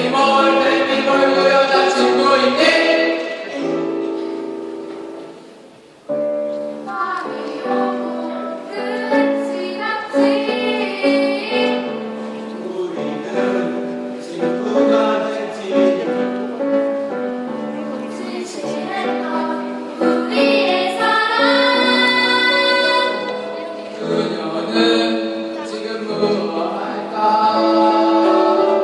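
A choir singing with instrumental accompaniment, in held and moving chords; the music fades away about six seconds in, then starts again abruptly.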